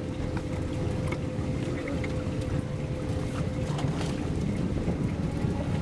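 Wind rumbling on the microphone out on open water, with a steady low hum underneath.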